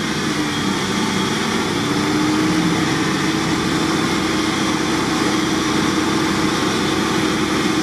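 Off-road vehicle engine idling steadily, its hum rising a little in pitch about two seconds in and then holding.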